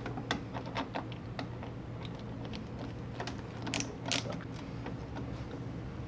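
Hand screwdriver with a quarter-inch bit driving coarse-threaded screws into plastic, a run of small irregular clicks and ticks with a few sharper ones about four seconds in.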